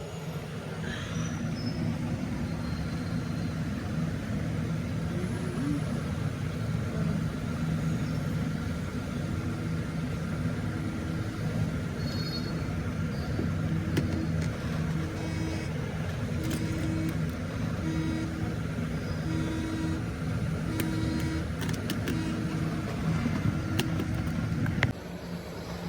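A steady low mechanical rumble, with a faint short tone repeating about once a second through the middle. The rumble drops off abruptly near the end.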